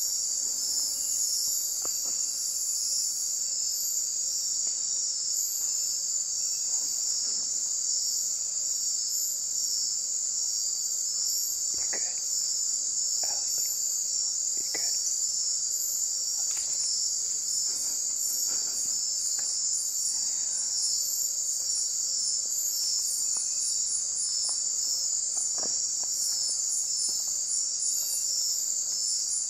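A chorus of night insects, crickets or katydids, making a dense, steady, high-pitched chirring, with a faster pulsing trill layered above it. A few faint clicks come through in the middle and near the end.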